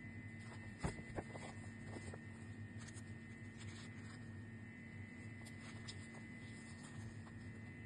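Paper documents being handled and leafed through: two short taps about a second in, then faint rustles, over a steady hum.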